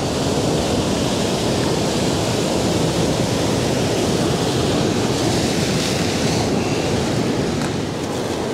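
Ocean surf breaking and washing over boulders along a rocky shore: a steady, loud rush of water that eases slightly near the end.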